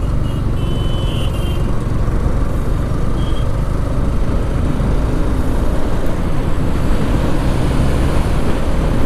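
Motorcycle riding along at steady speed: the Yamaha R15 V4's single-cylinder engine running under a dense, steady rush of wind and road noise on the rider's microphone.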